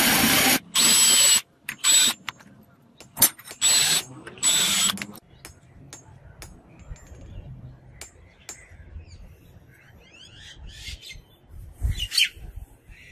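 A drill bores a hole through a steel katana blade, cutting in several bursts over the first five seconds and then stopping. Faint clicks follow.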